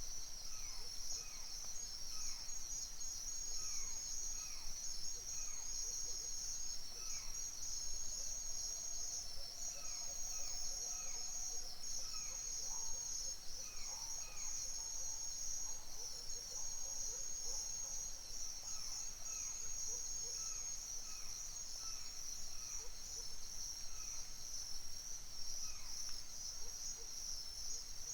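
Dense, steady chorus of crickets and other insects trilling at a high pitch, with birds calling over it again and again in short, falling chirps.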